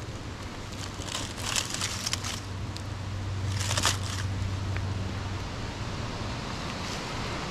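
Dry leaf litter rustling and crackling as a hand digs through it under a rotten log, in a few brief bursts, the loudest about four seconds in. A steady low rumble of wind on the microphone runs underneath.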